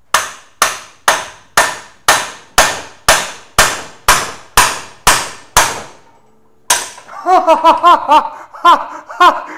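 A hammer striking a long steel drift bar about twice a second, a dozen blows, driving the old rear wheel bearing out of a 1969 VW Bus trailing arm's bearing housing. After a short pause there is one more blow, then quicker strikes with a small dog barking over them near the end.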